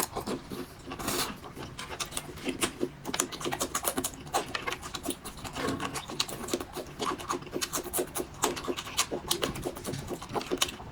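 Close-miked eating sounds: a person chewing food, with many quick, irregular mouth smacks and clicks.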